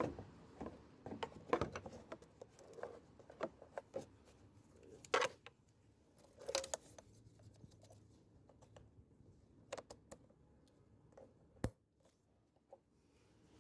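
Irregular small clicks and light metallic clatter of tools and parts being handled, with a couple of louder clacks about five and six and a half seconds in and a sharp click near the end.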